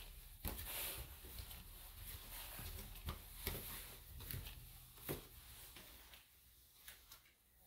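Faint, soft footsteps climbing carpeted stairs and then walking on carpet, dull thuds about a second apart, growing fainter near the end.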